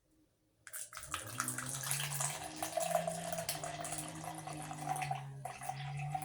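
Blue lemonade soda being poured out, a fizzing splash that starts about a second in, breaks off briefly near the end and picks up again.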